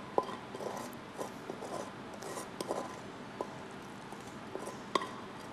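A spatula scraping fried potatoes and onions out of a metal pan into a glass bowl: light scrapes and scattered small clicks, with a sharper tap about five seconds in.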